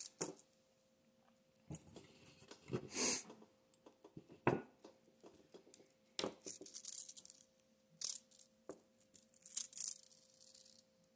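Fingers handling and pulling stiff 60-pound monofilament leader line while wrapping a snell knot on a hook: short, scattered rustles and scrapes a second or two apart, over a faint steady hum.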